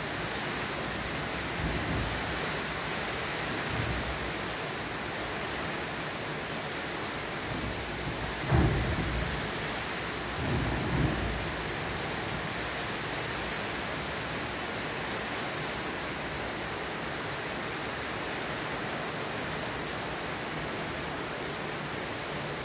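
Steady rain falling, an even hiss throughout, with a few brief low thumps, the loudest about eight and a half seconds in.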